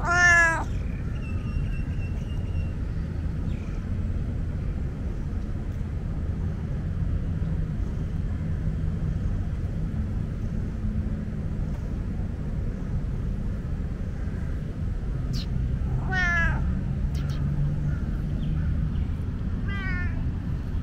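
Tabby tomcat meowing: one loud short meow at the start, a second about sixteen seconds in, and a fainter one near the end, over a steady low rumble.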